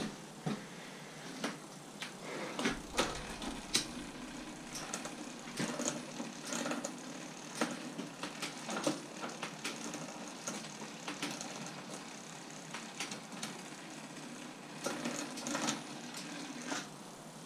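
Scattered, irregular clicks, light knocks and clatter of tools and bicycle parts being handled in a home workshop.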